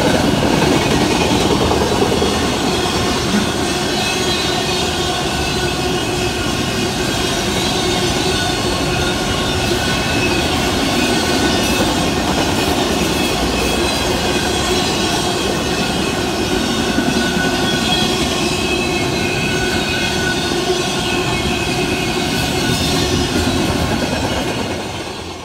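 Intermodal freight cars passing at speed: the rumble and clatter of steel wheels on the rails, with steady high-pitched ringing tones from the wheels over it. It fades out at the very end.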